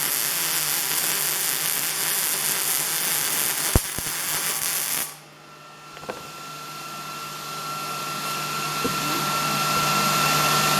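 Welding arc from a Miller Multimatic 215 running on 110 V, a steady hiss for about five seconds that cuts off suddenly when the weld stops. After it comes a quieter steady hum with a few light clicks.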